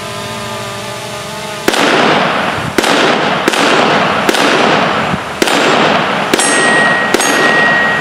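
Walther WMP .22 Magnum semi-automatic pistol fired seven times, about a shot a second, each sharp crack trailing off in an echo. A steady hum fills the first second and a half before the first shot, and a high ringing tone holds through the last two shots.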